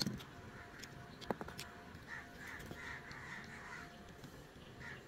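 A few light clicks and taps of a toy car's plastic gearbox parts being handled, the sharpest about a second in, with harsh bird calls in the background.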